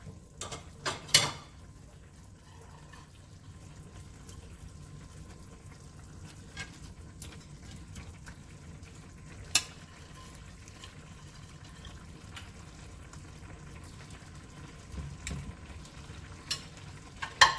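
Brown-stew gravy simmering in a pot with a steady low sizzle and bubbling, while a utensil clinks against the pot now and then, a few times about a second in and loudest near the end, as pieces of fish are put in.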